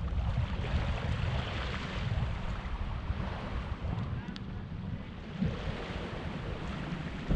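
Wind buffeting the microphone over the steady wash of ocean waves.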